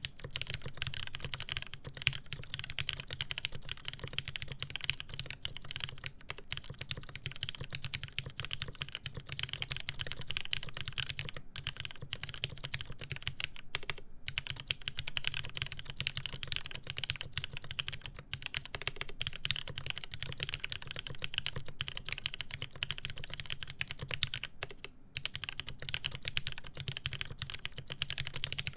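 Fast, continuous typing on a SINGA Jaguar custom mechanical keyboard, with lubed Cherry MX Speed Silver linear switches, a 2 mm polycarbonate plate and GMK keycaps. The keystrokes come densely, with a short pause about halfway through and another near the end.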